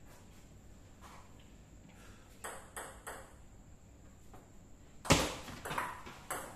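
Table tennis rally: the ball clicks back and forth off paddles faced with pimpled rubbers and off the table, a few sharp pings a second, with one much louder hit about five seconds in followed by a quick run of further clicks.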